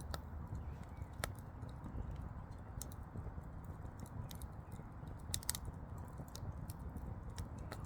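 Firewood burning: irregular sharp crackles and pops over a steady low rumble of the fire.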